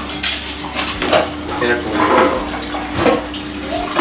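Kitchen clatter: a run of metal clinks and knocks against a large metal cooking pot.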